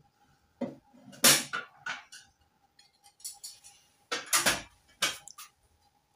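Dishes and kitchen utensils clattering: a string of sharp clinks and knocks, irregularly spaced. A faint steady high tone runs underneath.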